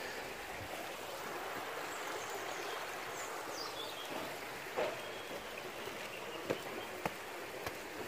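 River water rushing over rocks in a steady, even rush, with a few footsteps knocking in the second half.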